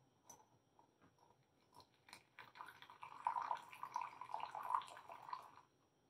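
Freshly brewed coffee poured from a stovetop moka pot into a glass tumbler: a few light clicks first, then from about two and a half seconds in a thin stream trickling and splashing into the glass, stopping shortly before the end.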